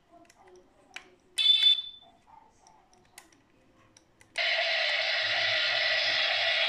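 Sound effects from the small built-in speaker of a 1:8 scale Fiat 126p model: after a faint click, a short loud electronic horn beep about a second and a half in, then a few more clicks, and from about four and a half seconds a steady recorded engine-running sound with a low pulsing beat starts suddenly.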